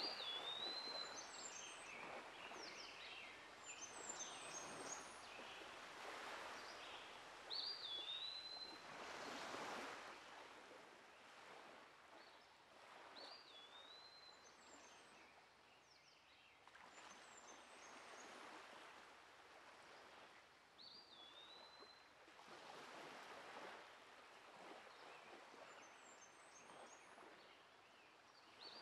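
Faint outdoor ambience: a bird repeats a short swooping call every six to eight seconds, with scattered higher twittering, over a soft rushing noise that swells and fades in waves.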